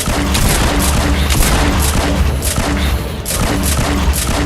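Loud action background music with a steady, driving beat and heavy bass, full of rapid percussive hits.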